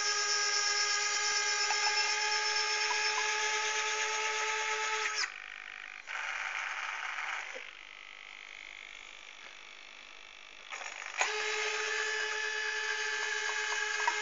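Small electric motors of an RC model's electric retractable landing gear whining as they drive the wheel legs. The whine stops about five seconds in, and after a quieter gap with a brief scraping stretch it starts again about eleven seconds in.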